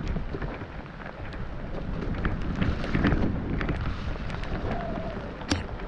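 A mountain bike descending a wet, muddy trail, heard from a camera on the rider: a steady rumble of wind on the microphone and tyres on mud and wet leaves, with many scattered clicks and knocks from the bike. There is a sharper knock about five and a half seconds in.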